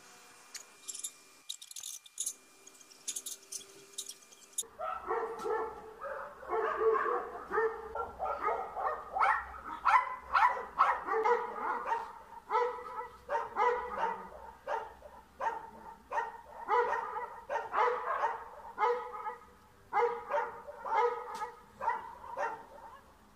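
A small dog barking rapidly and repeatedly at a cat perched out of reach, in quick runs of several barks a second with short breaks, starting about five seconds in.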